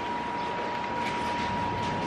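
Steady room noise with a constant high-pitched tone, and a few faint crackles as crisp deep fried chicken is pulled apart by hand.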